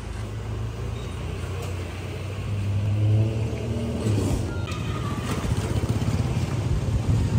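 A motor vehicle engine running close by on the street: a steady low hum that grows louder about three seconds in, then pulses evenly.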